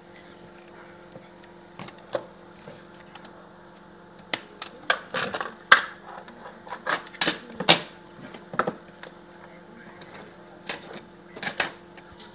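Irregular clicks and knocks from a Sharp washing machine's control panel being taken apart to reach its faulty control board, with a faint steady hum underneath.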